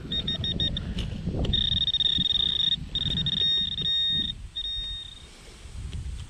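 Handheld metal-detecting pinpointer beeping as it is pushed into a plug of soil, signalling a metal target in the plug. It gives a quick run of about five short high-pitched beeps, then longer steady tones with brief breaks that stop about five seconds in. Under it, dirt rustles and crumbles as it is broken apart by hand.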